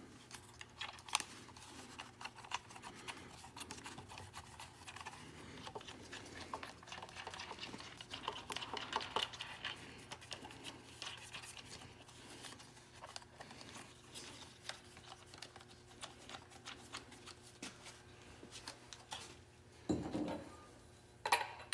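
Scattered light clicks and scraping of small metal parts being handled, as a nut and fitting are put on by hand onto a fuel pump hat.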